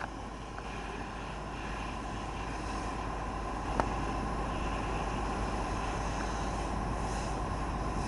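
Steady engine drone of a fire engine running at the scene, slowly growing louder, with a single sharp click about halfway through.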